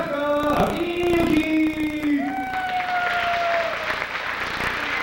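A man's voice drawn out into a long, sung call, held on one pitch and then on a higher note that slides slowly down, as a ring announcer stretches out a fighter's name. Crowd applause comes up under it from about three seconds in.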